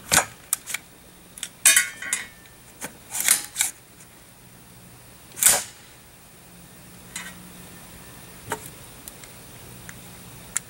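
Sharp cracks from a 9 mm AR-9 carbine firing copper-polymer Interceptor reloads, coming at irregular intervals with the loudest about five and a half seconds in. The reports sound funny to the shooter, who thinks the light bullets may be too light to cycle the action well.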